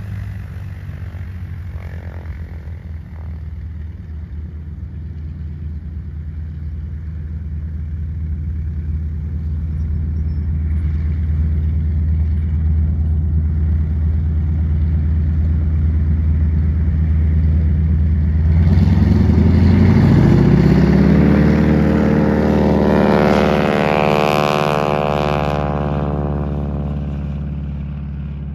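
Propeller aircraft radial engines drone steadily and slowly grow louder. About two-thirds of the way in, the North American AT-6G Texan's radial engine is throttled up for its takeoff run, and its pitch sweeps sharply upward. It then runs at full power, with a harsh propeller rasp loudest shortly after.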